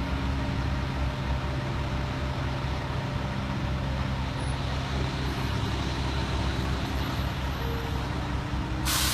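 Semi-truck's diesel engine running steadily as it pulls a heavy oversize lowboy trailer, with a short, sharp hiss of air from its air brakes near the end.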